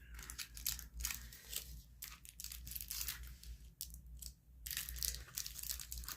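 Irregular crinkling and rustling of plastic packaging being handled, with a brief lull a little past four seconds.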